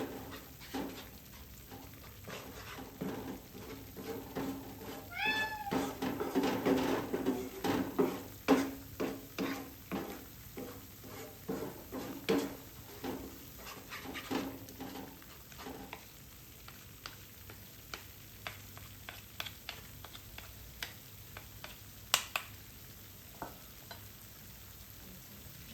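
Cooking sounds: a utensil stirring, knocking and scraping in a pot or pan, the clatter thinning out after about sixteen seconds. About five seconds in there is one short pitched call.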